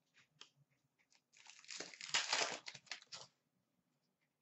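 A few faint clicks, then from about a second in two seconds of crackling and tearing: a 2016-17 Upper Deck O-Pee-Chee Platinum hockey card pack wrapper being torn open and crinkled.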